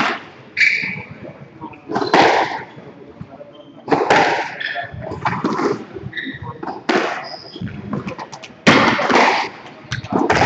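Indistinct voices of people talking nearby, with scattered sudden knocks and thuds.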